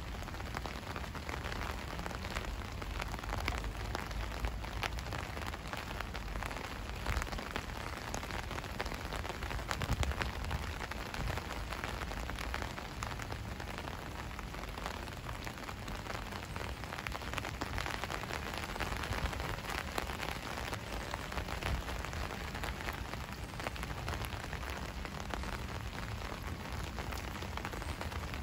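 Steady rain falling, with many small ticks of individual drops landing throughout.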